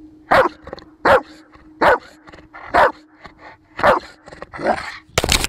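Rottweiler barking, about six single deep barks roughly a second apart. Just before the end, a loud, dense burst of a different sound cuts in.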